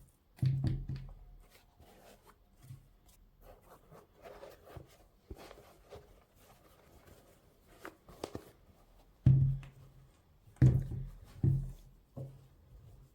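A handful of dull thumps, loudest near the start and in a cluster of three near the end, with light rustling and clicking in between: sneakers and their box being handled and set down.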